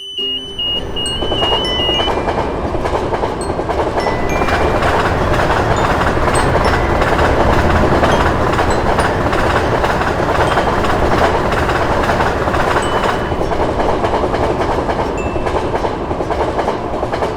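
A train passing over a level crossing: a loud, steady rumble with wheel clatter that dies away at the end.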